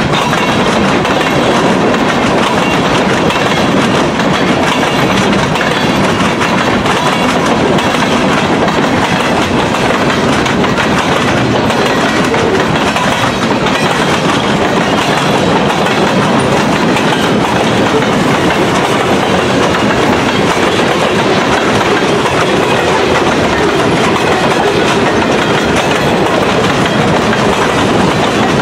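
Freight train's boxcars and covered hoppers rolling past close to the track: steel wheels running on the rails with a loud, steady rolling clatter.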